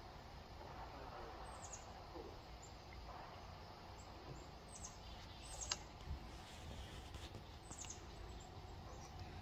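Faint, short, high bird chirps, each falling in pitch, come every second or two over a low steady outdoor rumble. A single sharp click about halfway through is the loudest sound.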